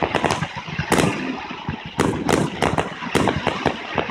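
Aerial fireworks shells bursting, a rapid string of sharp bangs with a loud one about a second in and a thicker run of bangs in the second half.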